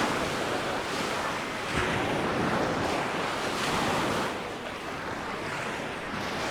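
Sea waves breaking and washing up a beach, the surf swelling and easing every second or two, with wind buffeting the microphone.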